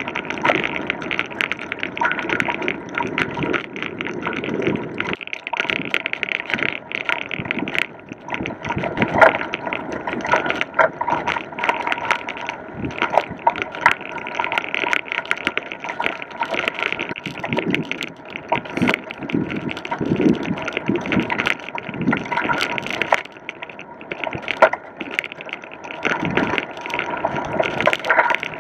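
Bicycle rolling over a gravel and dirt trail, picked up through a handlebar-mounted camera: steady tyre crunch with many irregular rattling knocks from the bike and the mount.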